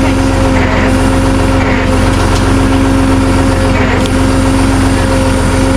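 Truck engine running steadily, a constant low rumble with an unbroken droning hum over it.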